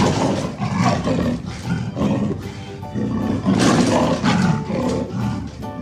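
A big cat roaring, a run of about five rough calls, each lasting roughly a second with short breaks between them.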